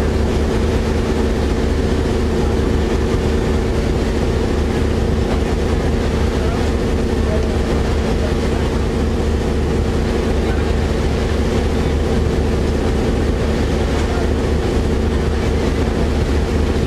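Boat engine running steadily: an unbroken, even drone with several low steady tones and no change in speed.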